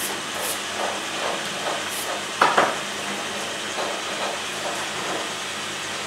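Wooden honey frames knocking sharply twice against the wooden hive box as a frame is levered out and lifted, about two and a half seconds in. A steady hiss with a soft pulse two or three times a second runs underneath.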